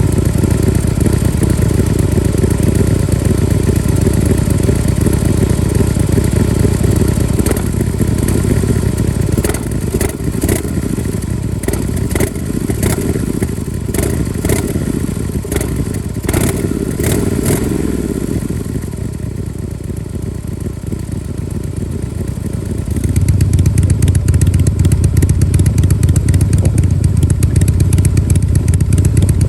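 Harley-Davidson Breakout CVO's 110 cubic-inch V-twin running through its exhaust with a steady low rumble, with a run of sharp clicks through the middle. It drops quieter for a few seconds near two-thirds of the way in, then comes back louder and deeper.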